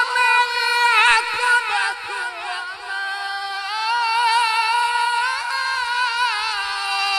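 A qari's solo voice in melodic Quran recitation, without accompaniment. Long held notes with quick wavering ornaments, the pitch stepping down about two seconds in.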